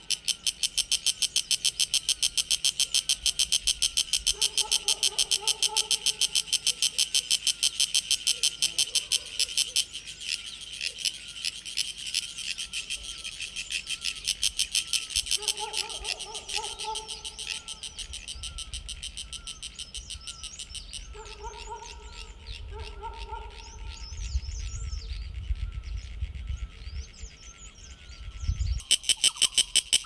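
Male Sulphogaeana cicada calling with its tymbal organs: a loud, rapid train of chirruping pulses, modulated as the abdomen extends and retracts. The call weakens and wavers after about ten seconds, nearly stops for a while, then comes back loud near the end. Short, low bird calls sound a few times behind it.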